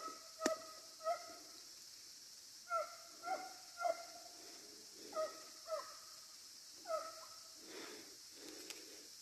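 Hunting dogs barking faintly, a string of short barks that each drop a little in pitch, coming in bunches of two or three with pauses between. They are baying at game that has gone to ground in a hollow log.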